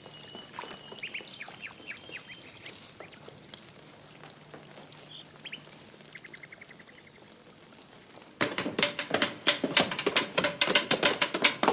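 Faint bird chirps and a short quick trill over quiet outdoor background, then about eight seconds in a sudden loud, rapid run of clicks and knocks, several a second.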